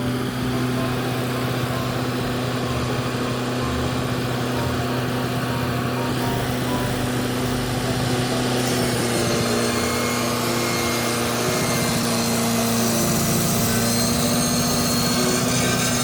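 Engine-driven circular sawmill running steadily. It grows louder and brighter in the high hiss from about halfway through.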